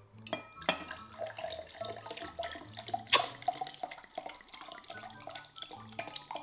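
Homemade pomegranate juice being poured into a glass, glugging and splashing. There is one sharp click about three seconds in.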